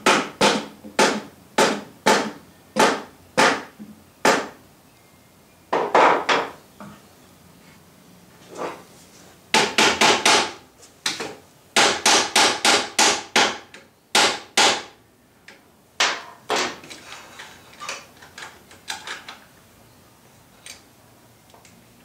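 Hammer rapping on hard live oak to seat the dovetailed boards flat in the clamping setup, in quick runs of sharp taps with pauses between, lighter and more spread out near the end. The wood is hard enough to take the blows without denting.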